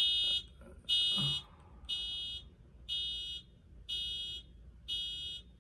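Electronic alarm beeping: high-pitched beeps, each about half a second long, repeating about once a second.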